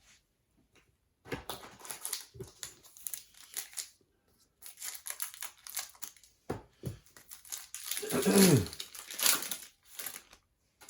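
Crinkling and tearing of a trading card pack wrapper being torn open and crumpled by hand, in irregular bursts. A short falling squeak comes about eight seconds in, amid the loudest crinkling.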